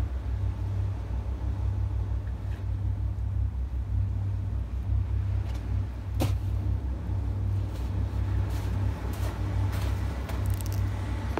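Wind buffeting the microphone, a low rumble that gusts on and off, with a sharp click about six seconds in and a few faint clicks near the end.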